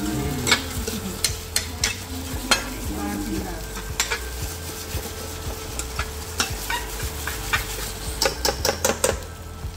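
Metal spoon scraping and clinking against a stainless steel frying pan as fried potato wedges are stirred in sauce, over a steady sizzle. The clinks come in a quick run near the end.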